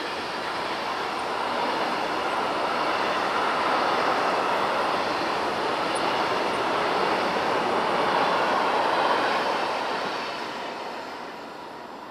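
A train passing on the line: the rail and wheel noise swells over the first few seconds, holds loud, then fades away from about ten seconds in as the train recedes.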